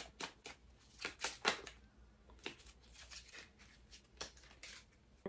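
A deck of oracle cards being shuffled and handled to draw a card: a run of short, irregular papery rustles and slides.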